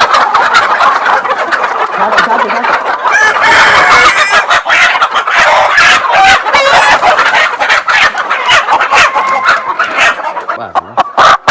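Country chickens clucking and squawking loudly, with roosters crowing, over a dense run of sharp flapping and scuffling knocks as birds are grabbed in the coop.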